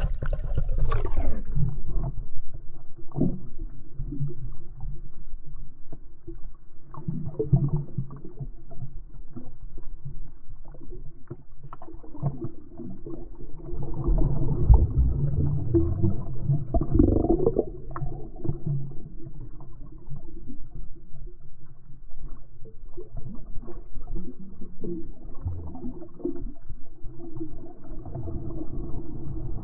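Underwater sound through a GoPro's waterproof housing: muffled water movement and a low rumble with scattered clicks and knocks. Over the first two seconds the brighter, open-air sound dulls away as the camera goes under the surface.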